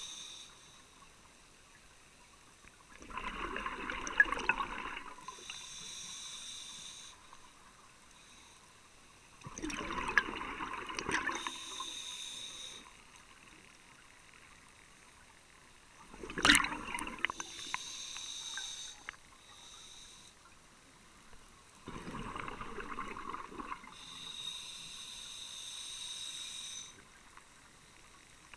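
A scuba diver breathing through a regulator underwater: about four slow breaths, each a hiss through the regulator and a gurgle of exhaled bubbles, with quiet pauses between.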